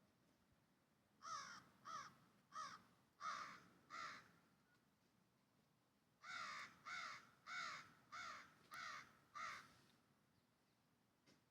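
A bird giving two runs of short, harsh calls, five and then six in a row, each call dipping slightly in pitch, with a pause of about two seconds between the runs.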